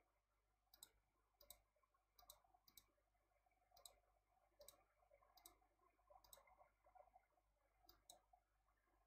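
Faint computer mouse clicks, about ten scattered irregularly.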